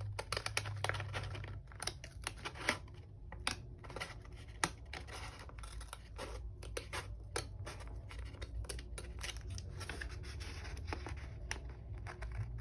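Scissors cutting paper in a run of short, irregular snips, with paper being handled between the cuts.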